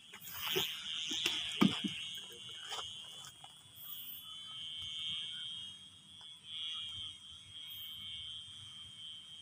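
A sendaren kite hummer on a flying kite, giving a steady high whine that swells and fades with the wind. In the first two seconds there is rustling and a few sharp clicks from the plastic kite being handled.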